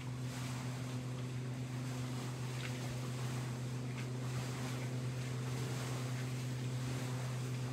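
A steady low mechanical hum, like a motor running, with a couple of faint ticks.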